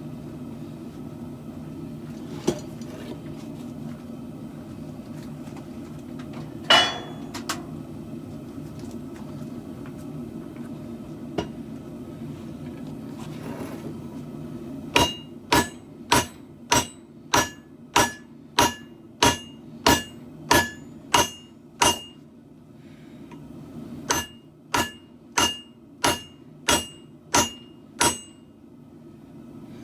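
Hammer blows on steel against an anvil, each with a bright ringing tone, in two steady runs of about one and a half blows a second, broken by a short pause: hand-forging a katana blade. A steady low hum runs underneath, and a few single knocks come before the hammering starts.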